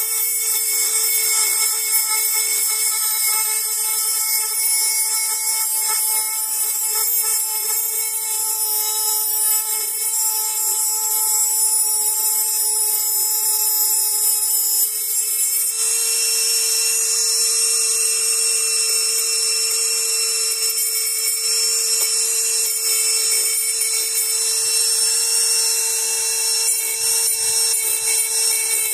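High-speed rotary tool running steadily with a high, even whine, grinding on the rifle's metal parts; the whine shifts slightly a little over halfway through as the load on the bit changes.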